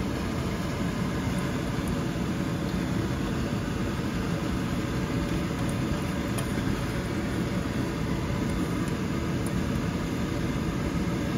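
Steady low rushing hum of a kitchen exhaust fan running over the gas stove, with a few faint light ticks.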